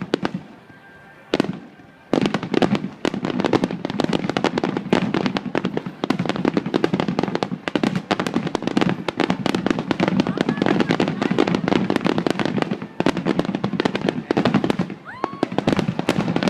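Fireworks display: after a quieter first two seconds, a dense, rapid run of aerial shell bursts and crackling, with a whistling shell near the end.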